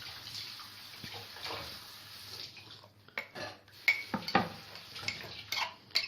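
Thick paste of blended garlic, figs and olive oil being spooned and scraped into a jar, a soft scraping at first, then several sharp clinks of the spoon against the jar and bowl from about halfway in.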